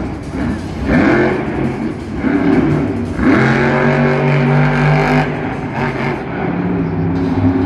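Monster truck engine revving hard, rising and falling in pitch, with a steady high-revving stretch in the middle.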